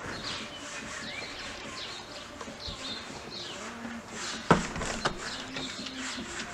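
Garden birds chirping and singing, many short overlapping calls. A sharp knock about four and a half seconds in, with a smaller one about half a second later.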